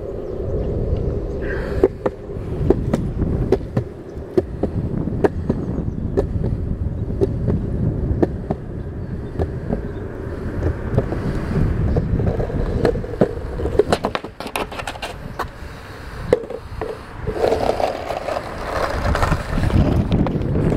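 Skateboard wheels rolling on concrete: a steady low rumble, with sharp clacks as the wheels cross the joints and cracks in the path.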